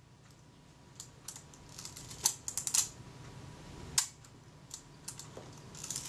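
Kodak Retina IIIc's film-advance and shutter mechanism clicking as it is worked by hand: a scatter of small, sharp clicks, the loudest about two and four seconds in. At this stage the film advance is not yet releasing at the same moment as the shutter.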